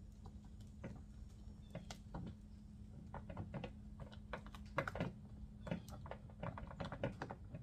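Irregular light clicks and taps of hands working a metal washer and tape onto the plastic interior trim of a van's rear door, getting busier after about three seconds, over a faint steady low hum.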